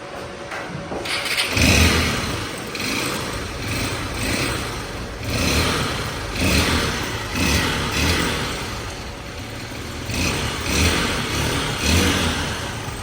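Honda XR 150L single-cylinder four-stroke engine starting about a second and a half in and then revved in repeated throttle blips, with the strange noise from the top end (cylinder head) that the mechanic traces to a scored cylinder.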